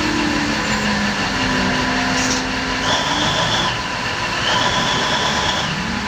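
Steady, loud vehicle engine noise, with two brief high-pitched tones about three and four and a half seconds in.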